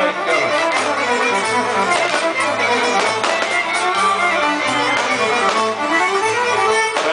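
Folk music led by a violin, its melody sliding and ornamented over a steady accompaniment.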